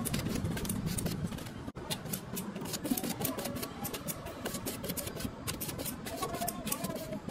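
Rapid, irregular metallic clicks and scrapes of lead-acid battery plates being handled and worked with a hand tool, several clicks a second, over a low steady rumble.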